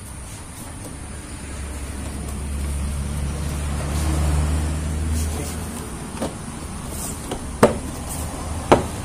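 A low vehicle rumble swells and fades over the first few seconds. Then three sharp snaps about a second apart near the end, as the plastic clips of a car's door trim panel are pressed home.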